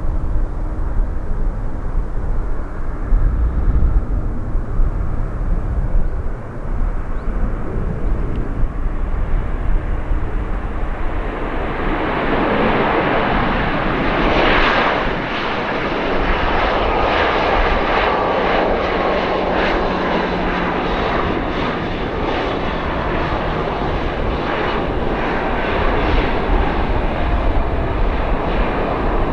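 Jet airliner's engines passing close by: a low rumble for the first dozen seconds, then the engine noise swells quickly to its loudest about halfway through and carries on steadily with a slowly falling whine.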